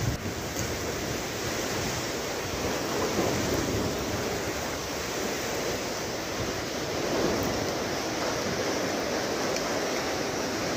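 Rough, choppy sea in strong wind: a steady noise of waves churning, with the wind blowing over it.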